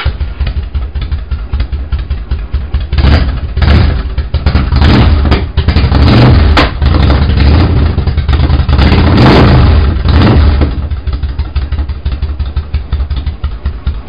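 Yamaha V-Star 1100's air-cooled V-twin engine, just started after a clutch plate replacement, running and revved repeatedly with the throttle for several seconds, then settling back to idle for the last few seconds.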